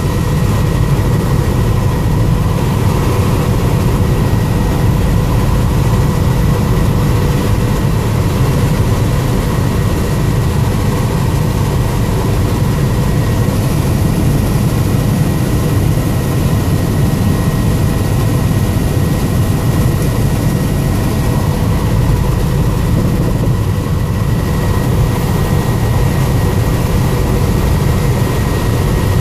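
Helicopter in level flight heard from inside the cabin: a loud, steady rotor and engine din with a thin steady whine above it.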